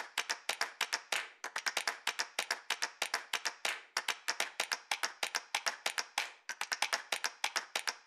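A rapid, irregular run of sharp clicks and taps, about seven a second: the sound effects laid over an animated paper-collage intro.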